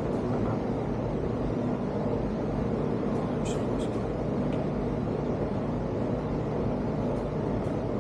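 A steady low mechanical drone with a few steady tones in it, with a short cluster of light clicks about three and a half seconds in.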